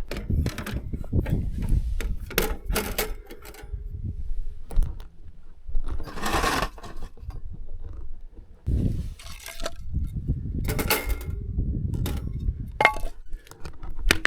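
Irregular clinks, knocks and rustles of objects being handled, with a brief metallic ring near the end, over a steady low rumble.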